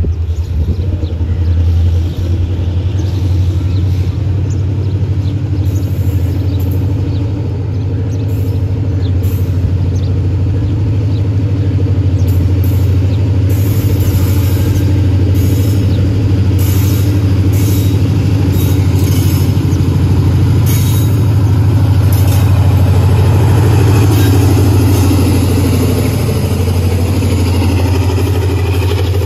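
Diesel locomotive engine running close by: a loud, steady, deep drone that swells slightly toward the end.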